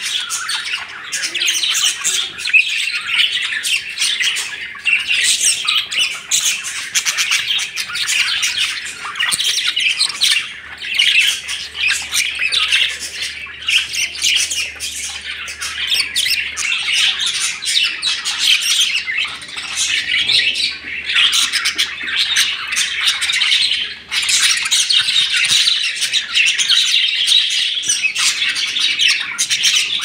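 A flock of budgerigars chattering continuously, many birds chirping and warbling over one another at once.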